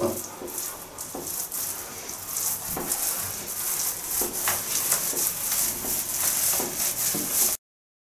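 Paint roller being rolled up and down a wall with white paint: a steady, high crackling hiss with a few soft knocks along the way. It cuts off abruptly shortly before the end.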